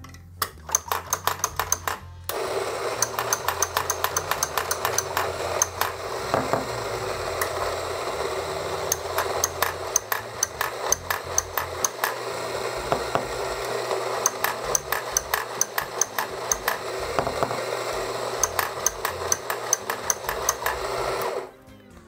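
Rancilio Rocky doser grinder: a quick run of doser-lever clacks, then the burr grinder's motor grinding espresso beans for about nineteen seconds with the doser lever clacking rapidly throughout as grounds are swept into the portafilter. The motor cuts off near the end.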